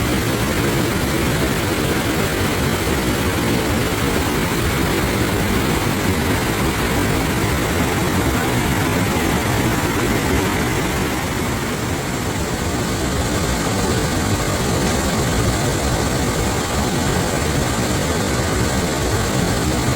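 Waterfall: a deep, steady rush of falling water, unbroken throughout.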